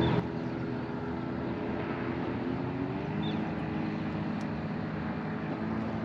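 Boat motor running steadily as a low hum, dropping a little in level just after the start and shifting slightly in pitch about halfway through. A couple of faint high chirps sound over it.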